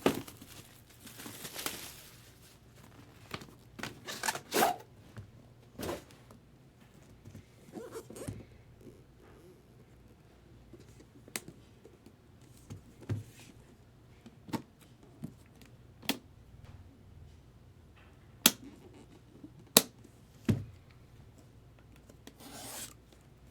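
Packaging on a trading-card box being torn and crinkled, followed by scattered handling clicks and taps, with two sharp clicks about a second apart near the end.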